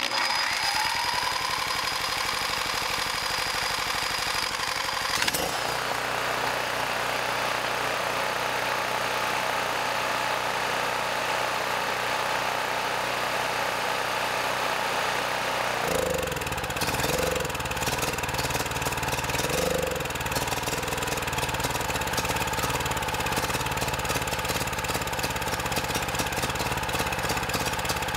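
Predator 4000 generator's single-cylinder engine running steadily on propane drawn from grill gas valves through hoses into the carburetor intake. About sixteen seconds in, its sound turns deeper and fuller.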